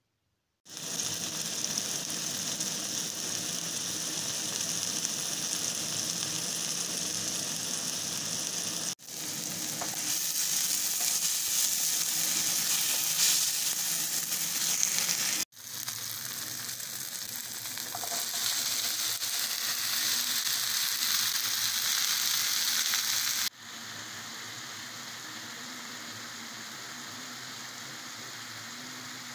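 Chopped onions and tomatoes, then pumpkin stems, sizzling in hot oil in a frying pan while a wooden spoon stirs them, in several short clips that cut in and out abruptly. The last clip is quieter.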